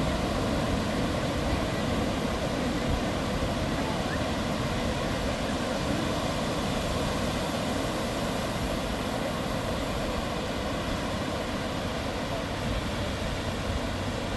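A motor running steadily, a constant droning hum.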